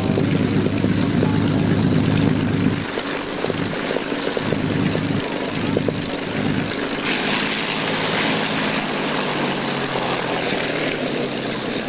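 Piston engine of a propeller aircraft running; its strong low drone drops away about three seconds in, and later its pitch falls slowly.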